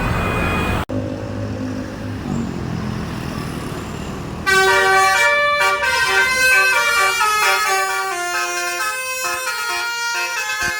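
Telolet basuri bus horn playing a rapid tune of short stepping notes, loud and reedy, starting about halfway through. Before it, after an abrupt cut about a second in, come a few seconds of lower stepped tones.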